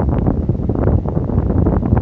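Electric fan blowing air straight onto the microphone, a loud, steady buffeting rumble with a fluttering hiss.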